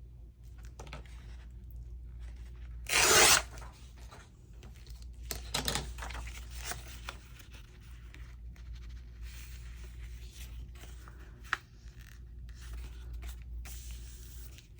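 Paper being handled and rustled on a craft table, with one loud, short rip of paper tearing about three seconds in. A few softer rips or scrapes follow a couple of seconds later, and a single sharp click comes near the end.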